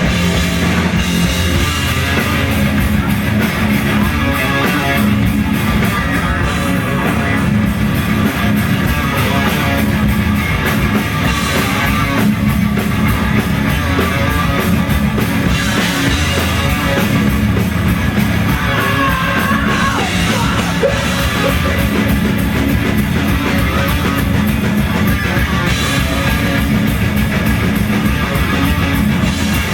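A rock band playing live at full volume, with drums keeping a steady beat under the instruments and singing over the top.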